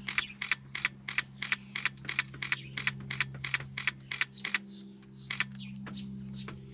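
Canon camera shutter firing in rapid bursts, about four to five clicks a second, thinning to a few single clicks near the end, over a steady low hum.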